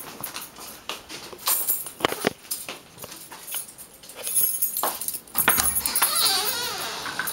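Keys jangling and clicking in the lock of a wooden door as it is unlocked and pulled open, with scattered sharp clicks. About five and a half seconds in, a louder wavering whine sets in and carries on.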